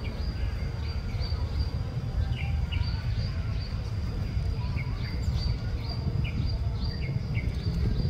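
Outdoor ambience: scattered short bird chirps and a steady high-pitched insect drone over a low, even rumble of background noise.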